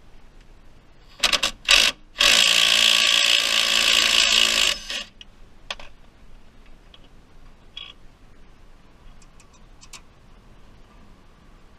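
Cordless impact wrench loosening a strut bolt: two short blips, then one run of about two and a half seconds as the bolt breaks free.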